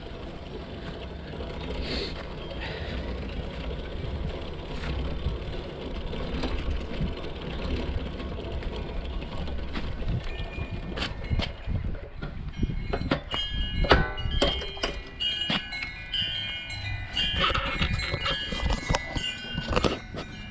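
Mini bike's Hisun 196cc single-cylinder engine running rough and uneven, not holding steady on its VM22 carburetor. About halfway through, metallic chime-like ringing joins in, with scattered clicks and knocks.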